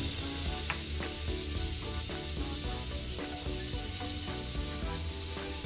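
Minced garlic sizzling steadily in melted butter in a nonstick frying pan over a low gas flame, stirred with a wooden spatula at first.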